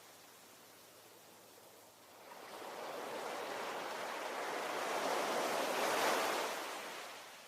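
Ocean waves: a quiet lull, then a wave swells in about two seconds in, peaks near six seconds as it breaks and washes up, and recedes toward the end.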